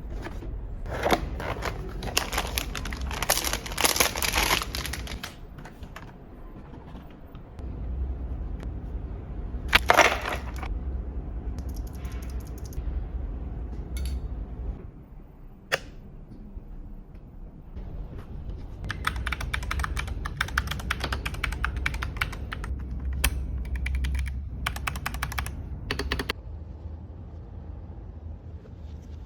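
Gamakay MK61 60% mechanical keyboard with Gateron yellow optical switches, unboxed and then typed on. Runs of quick keystroke clicks alternate with handling sounds, and there are a couple of single sharp knocks near 10 and 16 seconds in.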